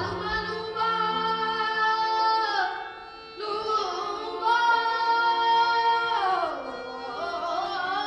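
Indian classical-style singing: voices holding long notes in two phrases, each sliding down in pitch as it ends, with a new phrase starting near the end.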